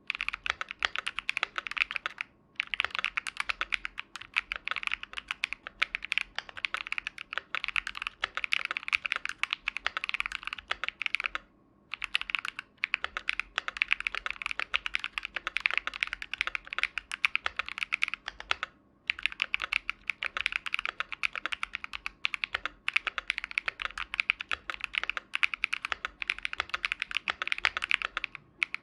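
Fast continuous typing on a mechanical keyboard with KTT Kang Gray tactile switches, sprung with 67g springs, in a brass plate: a dense run of clacks, with brief pauses about two and a half, twelve and nineteen seconds in. The switches are described as full of ping, from both the spring and the tactile leaf.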